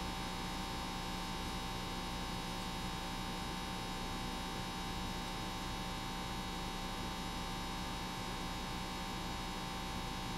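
Steady electrical mains hum with background hiss, unchanging throughout; no handling or other sounds stand out.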